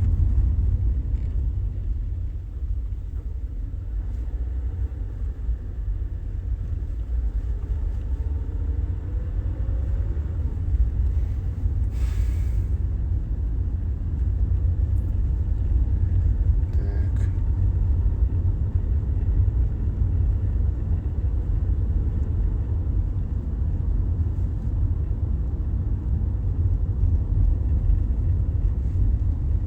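Steady low rumble of a car driving, heard inside the cabin through a phone lying in the car. A short hiss about twelve seconds in.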